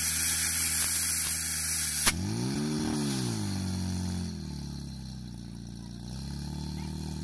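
Portable fire pump's engine running hard. Its pitch swings up and back down between about two and four seconds in, then settles lower and rises a little again near the end. A sharp click comes about two seconds in.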